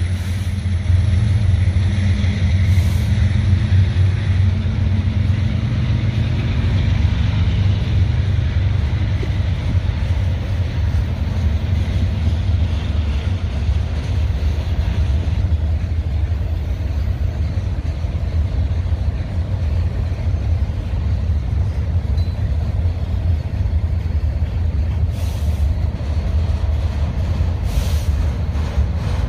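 Freight cars of a Union Pacific manifest train rolling past: a steady, even rumble of steel wheels on the rails.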